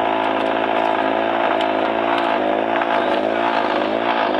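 Fishing boat's engine running steadily, with a few light clicks and knocks from handling the catch on deck.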